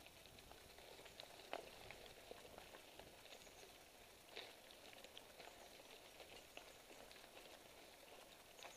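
Faint steady crackle with scattered small clicks and ticks from mountain bike tyres rolling over dry leaves and dirt on a singletrack.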